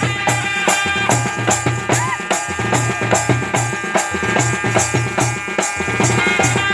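Kodava valaga folk music: drums beating a fast, even rhythm, about two to three strokes a second, under long held melodic tones.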